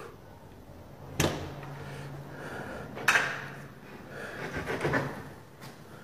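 Interior door's handle and latch clicking sharply twice, about two seconds apart, followed by quieter rattling of the door.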